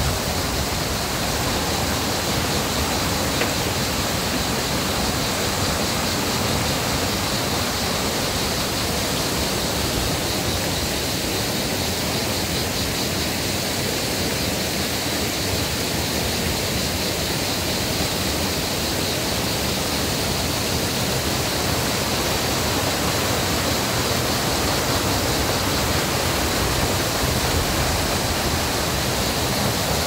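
Steady rush of water from the canyon's waterfalls and mountain stream, an even noise that holds at one level throughout.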